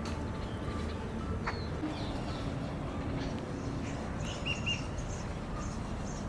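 Small birds chirping outdoors: short, high, repeated notes, busiest in the second half, over a steady background hiss.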